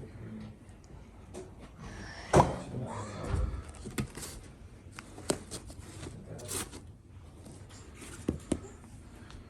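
Scattered knocks, clicks and rustling of objects being handled, with one louder knock about two and a half seconds in.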